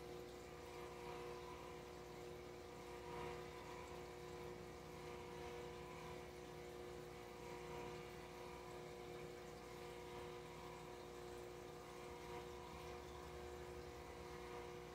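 Faint, steady hum of an aquarium air pump with the fizz of bubbles rising from an air stone in the tank.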